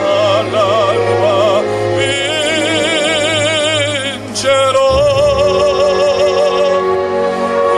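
Music with operatic singing: a voice holding long notes with a wide vibrato over instrumental accompaniment, with a brief break about four and a half seconds in before a new held note begins.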